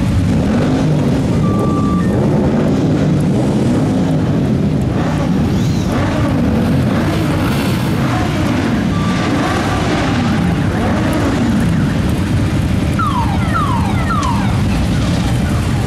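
A large crowd of motorcycle engines running together in a steady, loud rumble. Engines are revved again and again, so the pitch keeps rising and falling. Near the end come a few short, high, falling tones.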